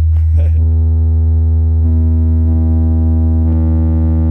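Loud, steady low-pitched tone played through a car sound system that is being tuned. Higher overtones join in about half a second in and again about two seconds in.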